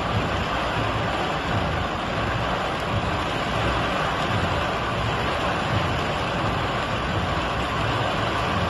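Heavy rainstorm: a downpour falling in a steady, even hiss, with a low rumble of wind underneath.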